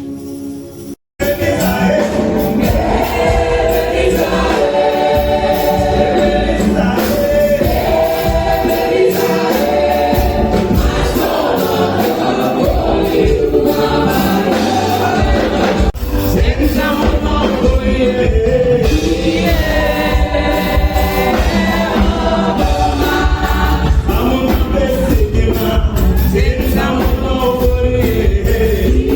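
Gospel music: a choir singing with a steady beat, after a brief gap about a second in.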